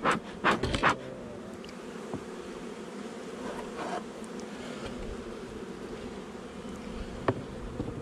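Honeybees buzzing steadily in a colony, with a quick run of sharp clicks in the first second and one more near the end.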